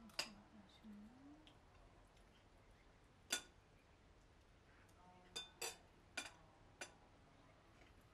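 Half a dozen sharp, sparse clinks of cutlery against dishes, spread over several seconds, with near silence between them.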